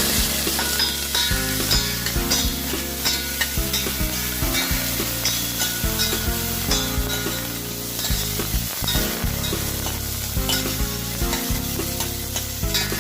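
Chopped onions and chili frying in hot oil in a pan, sizzling steadily, while a spoon stirs and scrapes through them again and again.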